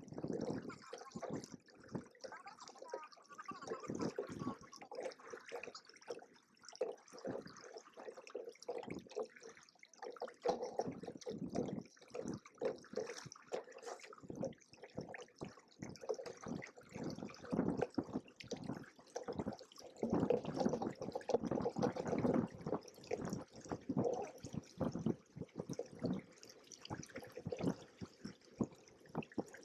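Lake water splashing and lapping against the hulls of a Hobie Cat 16 catamaran under sail, in quick irregular slaps over a steady hiss, busiest for a few seconds past the middle.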